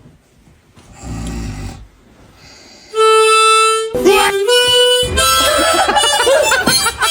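A harmonica comes in about three seconds in with a loud held note, then plays a slow run of held notes.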